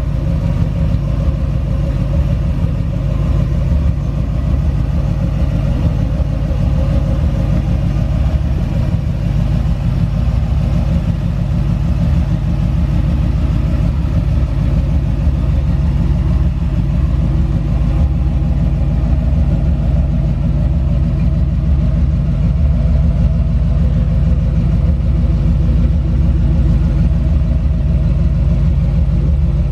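A 1969 Ford Bronco's 351 V8 idling steadily through its Flowmaster dual exhaust, a low, even rumble.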